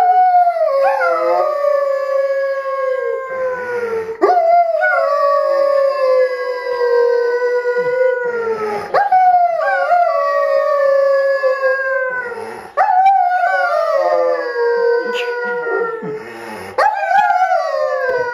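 Wolf-dog howling, a series of long howls that each slide slowly down in pitch over about four seconds, joined by a woman howling along with it.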